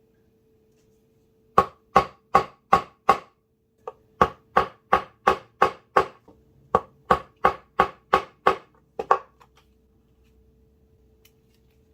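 Mallet striking a stitching chisel to punch saddle-stitch holes along a leather knife slip. About eighteen sharp knocks come at roughly three a second, in three runs with short pauses between them.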